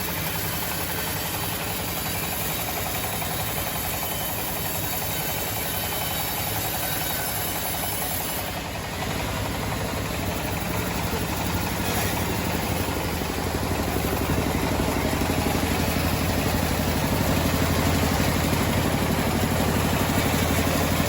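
Engine of a homemade sawmill running steadily, getting louder about nine seconds in and again around fourteen seconds.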